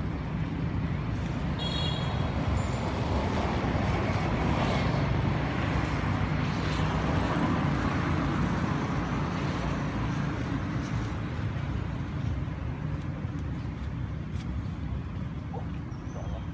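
Steady low outdoor rumble, swelling in the middle and easing off toward the end, with a few faint high chirps about two seconds in.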